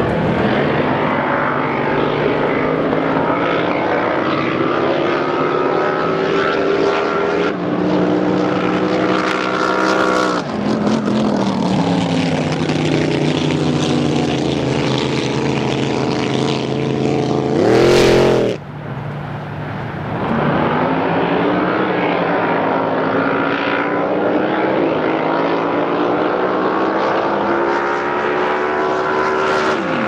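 Supercharged drag boat engines running hard on the water, a steady high-revving drone whose pitch slides up and down as the boats run and pass. Just past the middle comes a brief, very loud burst, and the sound then dips for a couple of seconds before the engine drone returns.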